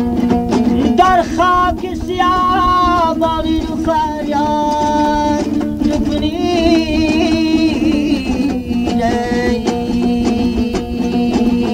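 Dambura strummed in an even, quick rhythm under a man's long held, wavering sung notes in the Badakhshani rubai style, from an old cassette recording; the voice stops about eight and a half seconds in, leaving the dambura playing on.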